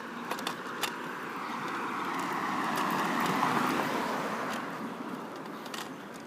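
A car passing on the street: its tyre and engine noise swells to a peak about halfway through, then fades away. A few sharp clicks sound near the start.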